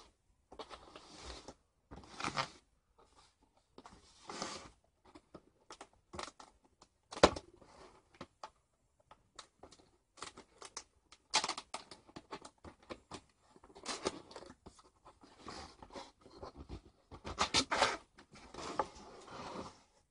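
A Boglin toy's cardboard box and packaging being handled and torn open: irregular crinkling, rustling and tearing with scattered sharp clicks, the loudest a sharp snap about seven seconds in.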